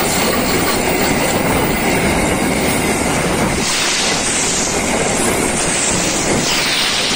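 Empty flat wagons of a container freight train rolling past close by: a steady, loud rumble and clatter of steel wheels on the rails.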